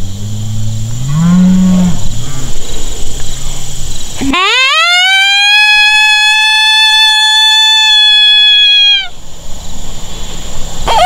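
A coyote howl sounded on a predator call: one long howl that sweeps up steeply, holds a steady high pitch for about four and a half seconds and cuts off sharply, as a locating howl to draw coyotes in. It follows a couple of low moans that rise and fall in the first two seconds.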